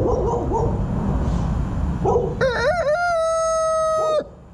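Brahma rooster crowing once on command. Its crow starts with a wavering opening about halfway in, then holds one long steady note that cuts off shortly before the end.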